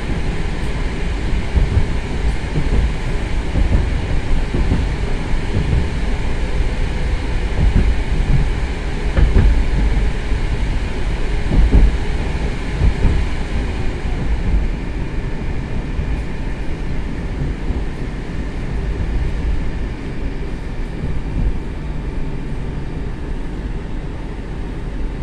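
Running noise inside an 81-765.2 metro car: the wheels rumble on the rails with irregular knocks over rail joints. About halfway through the sound eases and quietens as the train slows into a station.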